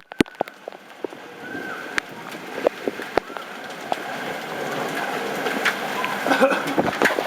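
Severe thunderstorm rain with scattered sharp knocks of hail striking hard surfaces, growing steadily heavier and louder.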